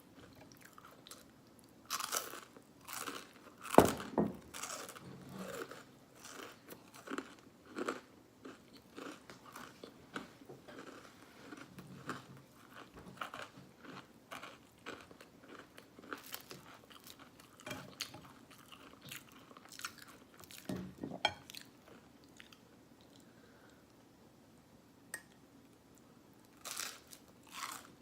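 Close-miked eating: a person biting and chewing Eggo cinnamon waffles with mouth open, full of sharp wet clicks and smacks. The loudest bite comes about four seconds in, and there is a short quieter pause about three-quarters of the way through.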